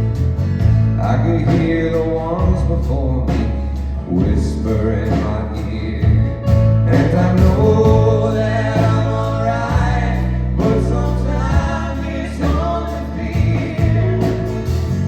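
Live band playing a song: sung vocals over a steady bass line and rhythmic strumming.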